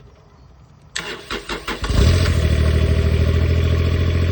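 Kubota U17 mini digger's three-cylinder diesel engine cranked by the starter for about a second, then catching about two seconds in and settling into a steady idle, running again now that sludge has been cleared from its fuel housing and pipe.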